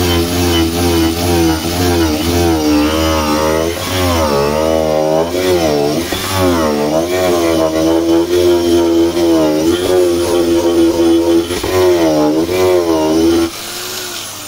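Power grinder with a ball-shaped carving head grinding out the hollow of a cherry-wood dish blank. The motor whine rises and falls in pitch as the head bites into the wood and eases off. Near the end it is switched off and winds down.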